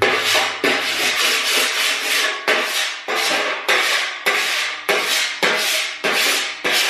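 Hand body file scraping across a welded steel body panel in quick back-and-forth strokes, about two a second, scoring the surface so the low spots show up.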